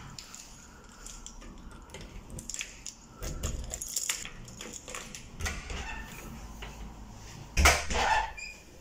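A bunch of keys on a keyring jangling and a key working the door lock, with a run of small metal clicks and rattles. Near the end there is one louder knock as the door is opened.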